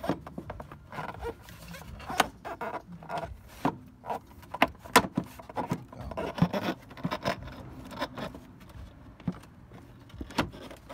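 Plastic cold air intake airbox and its rubber edge seal rubbing, scraping and knocking against the engine bay as it is forced into place by hand, with irregular sharp knocks throughout.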